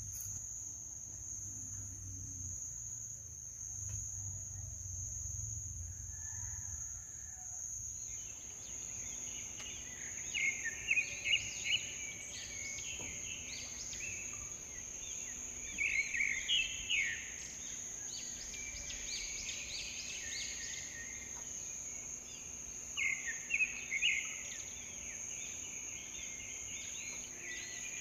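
Birds chirping in short, quick trills, in three louder clusters, over a steady high-pitched insect drone.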